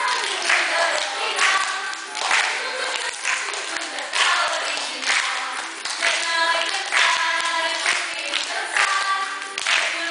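Group of young children and women singing a Christmas song together, with hand clapping in time about once a second.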